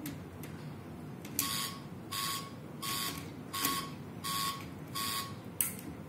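LEGO Mindstorms EV3 brick's speaker sounding the anti-theft alarm: about six short buzzy beeps, evenly spaced a little under a second apart, starting about a second and a half in. A few light clicks come from the plastic model as it is handled.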